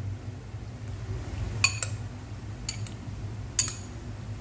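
Spoon clinking against a bowl while mixing marinated chicken pieces: three sharp, ringing clinks about a second apart, the first the loudest.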